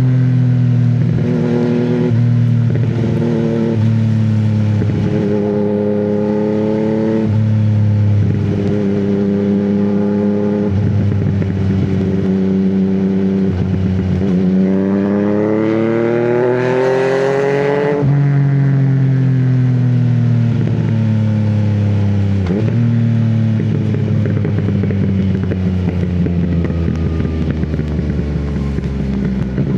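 Yamaha MT-09's inline three-cylinder engine pulling hard through a quick run of quickshifter upshifts, the revs climbing and dropping at each clutchless gear change. About midway it makes one long climb in a higher gear, then the revs fall away steadily as the bike slows, with another shift near three quarters through.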